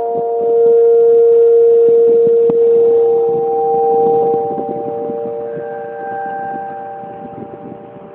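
Solar-powered speaker boxes playing electronic drone tones: several steady pitches held and overlapping, with a strong low tone that fades out after about four seconds while higher tones come in. A brief click about two and a half seconds in, and the overall sound grows quieter toward the end.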